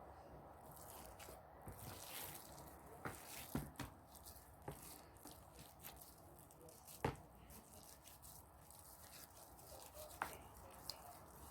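Soft, faint squishing of sticky spiced minced meat being pressed and shaped by hand onto skewers, with several sharp clicks and taps, the loudest about 3.5 and 7 seconds in.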